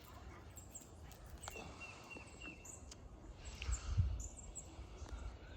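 Backyard birds chirping: scattered short high calls, including a quick run of even notes about a second and a half in, over a low steady background, with a brief low rumble about four seconds in.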